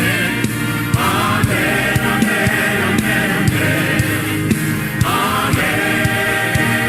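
Gospel worship music: a choir singing over a band with a steady drum beat.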